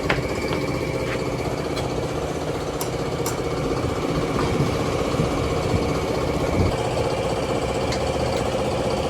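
A motor or engine running steadily at idle with a slight rattle, with a few faint clicks over it.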